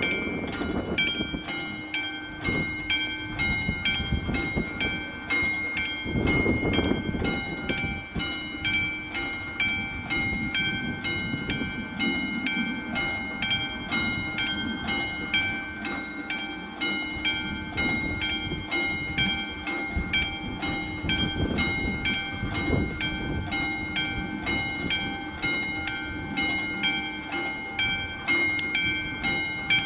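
Classic mechanical level-crossing warning bell ringing steadily, about two even strikes a second, each strike ringing on with several tones. The crossing's warning is active, which means a train is approaching.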